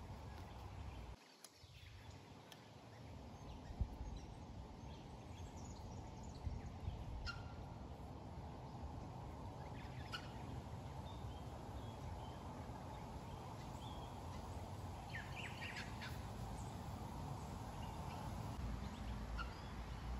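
Outdoor woodland ambience: a steady low background rush with short bird chirps and calls scattered throughout. The background drops out briefly about a second in.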